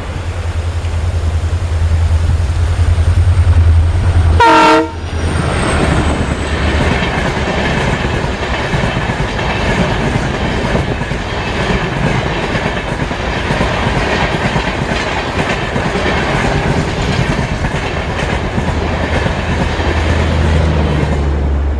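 Indian Railways diesel train passing close: a deep, loud engine drone, a short horn blast about four and a half seconds in, then a steady clatter of wheels over the rail joints, with the deep engine drone coming back near the end.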